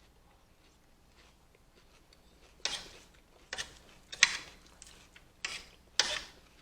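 Close-up crunching of food being chewed: about five crisp crunches at uneven intervals, starting a little over two seconds in.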